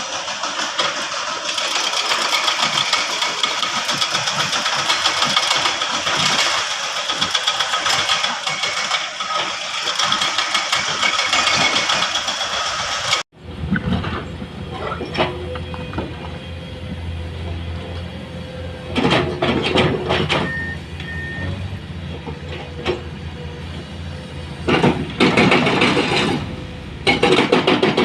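Engines of construction vehicles running. The first half is a dense, higher-pitched engine noise; about halfway through it cuts off abruptly, and a lower, steady engine hum follows, with several short louder surges near the end.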